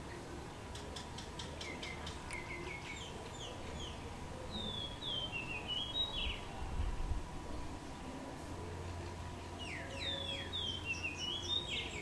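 Common myna singing: two runs of quick, varied whistled notes, many sliding down in pitch. The second run starts near the end.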